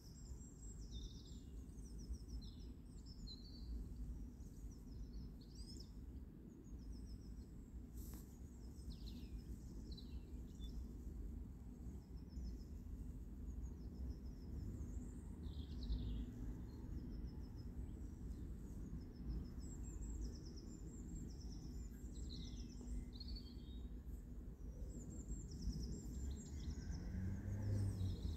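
Small birds chirping and calling in short, high repeated phrases, some notes falling in pitch, over a low steady background rumble.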